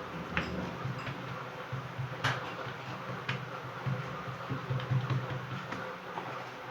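Hands folding and pressing oiled, buttered dough on a work surface: a few sharp, sticky slaps and clicks, over a low steady hum.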